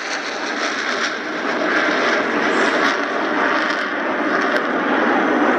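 Jet noise from Blue Angels F/A-18 Hornets in flight: a loud, steady rushing noise that grows a little louder after the first second or so.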